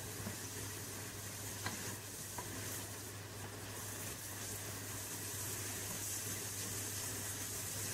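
Chopped onions sizzling quietly in hot oil in a pot, stirred with a wooden spatula that gives a few faint taps against the pan.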